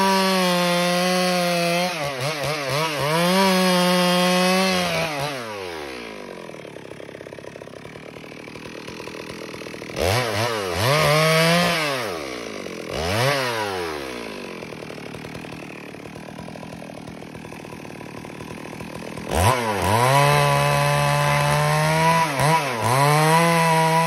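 Stihl MS 382 two-stroke chainsaw ripping lengthwise along a log at full throttle. About five seconds in it drops to idle, revs up twice in the middle, then idles again. Near the end it cuts at full throttle once more.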